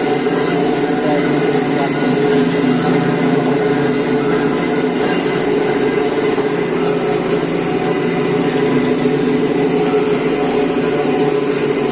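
Bandsaw machine running with a steady, loud mechanical hum and whine that holds the same pitch throughout.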